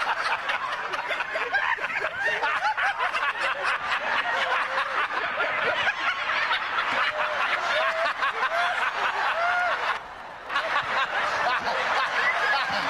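A congregation laughing, many voices at once in a dense, continuous mix of chuckles and high laughing, with a brief lull about ten seconds in.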